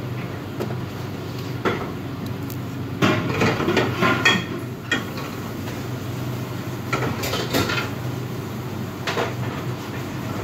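Metal trays, pans and dishes clattering and knocking on steel kitchen counters in irregular bursts, busiest in the middle and again a little later, over a steady low hum.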